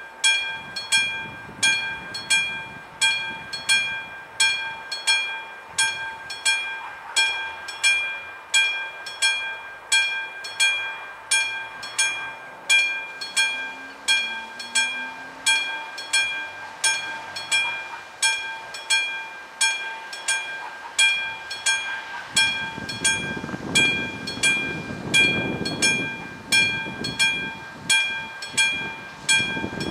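Classic level-crossing warning bell of an AŽD 71 crossing signal striking about one and a half times a second, each stroke a clear ringing metallic tone, the crossing closed for a train; it falls silent at the very end. A low rumbling noise joins in for the last several seconds.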